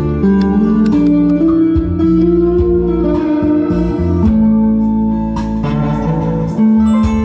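Instrumental music led by a guitar-like plucked string instrument, playing long held notes that step and slide between pitches.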